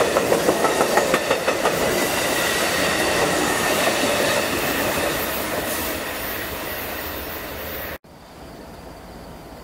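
Amtrak passenger train of stainless-steel bilevel cars rushing past at speed. A quick run of wheel clicks over the rail joints comes in the first two seconds over a faint steady squeal, and the noise fades as the last car goes by. About eight seconds in it cuts off abruptly to a much quieter steady hiss.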